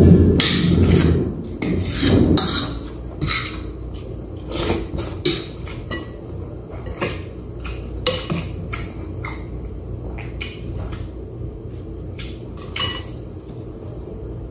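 Metal spoon and fork clinking and scraping against a plate in irregular sharp clicks, busier in the first few seconds, with chewing.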